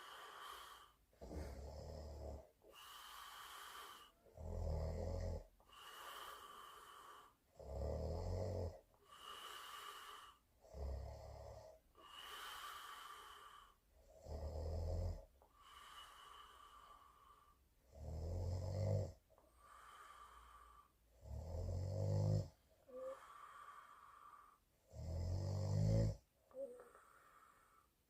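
A woman asleep on her back snoring: a rough, rattling snore on each in-breath, then an airy out-breath, repeating about every three and a half seconds.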